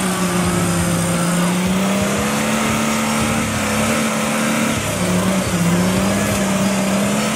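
Off-road buggy's engine held at high revs while the buggy sits bogged in a muddy rut, its pitch wavering and dipping briefly about five seconds in.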